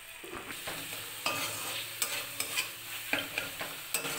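Spatula stirring and scraping a frying masala of spices and chopped tomato in a metal kadai: a steady sizzle with repeated scrapes and knocks against the pan.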